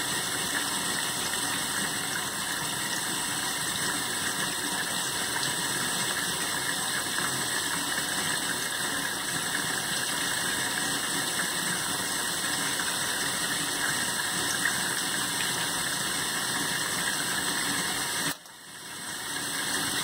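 Steady hiss throughout that drops out briefly near the end, with faint small scratches and clicks of a pin picking food out of the jet holes of a plastic dishwasher spray arm.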